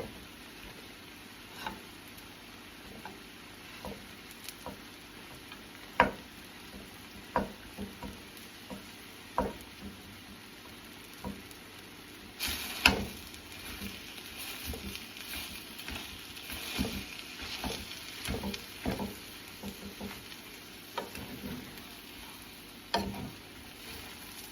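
Rice being stirred in a frying pan: a cooking utensil knocks and scrapes against the pan every second or two. About halfway through, sizzling frying comes up under quicker stirring knocks.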